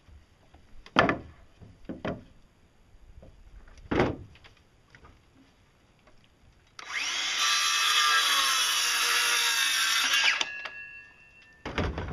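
Wood being handled with a few sharp knocks, the first the loudest. Then a cordless electric saw cuts through a 2x4 for about three and a half seconds, its motor winding down with a fading whine, and a couple more knocks near the end as the board and saw are set down.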